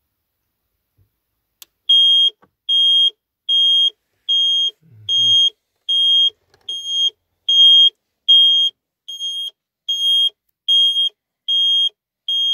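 VW Golf 5 factory anti-theft alarm siren going off: a loud, high single-pitched beep repeating about once every 0.8 seconds, starting about two seconds in. The alarm has been set off by a simulated break-in.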